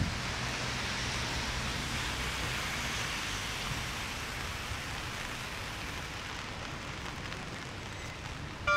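Steady outdoor background hiss with a faint low hum; no siren tone is sounding yet. Right at the very end a bell-like chime strikes and rings on.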